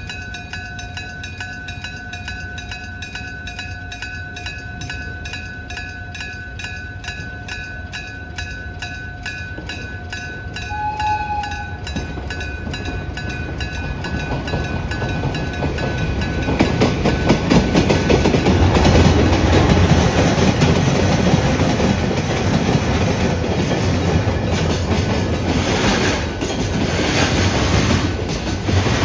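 Japanese electric-bell (denshō-type) level crossing alarm ringing in a rapid, even rhythm, with a brief train horn note about eleven seconds in. A diesel-hauled freight train then approaches and passes over the crossing with rumbling and wheel clatter, getting louder and loudest in the second half.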